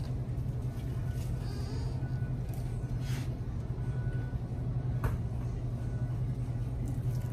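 Steady low hum of an open glass-door grocery freezer case, with a few brief clatters about three and five seconds in.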